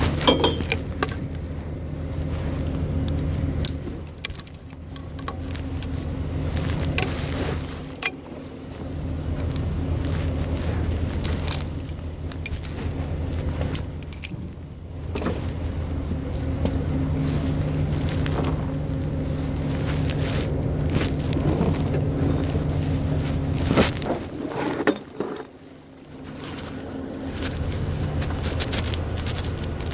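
A heavy machinery engine running at a steady pitch, fading briefly a few times, with scattered clicks and rattles over it.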